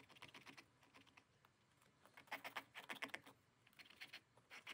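Faint, short scratchy strokes of a scalpel blade scraping old hollow-back paper and glue remnants off a book's spine, coming in small clusters from about two seconds in.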